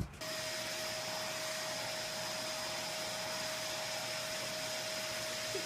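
Steady machine noise, an even rushing sound with a constant whine on top, starting abruptly just after the start and holding unchanged.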